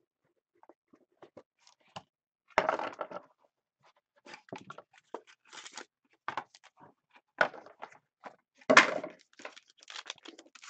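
Handling and opening trading-card packaging: a run of scratches, clicks and crinkles of plastic wrap and cardboard, with two louder tearing crunches about three seconds in and near nine seconds.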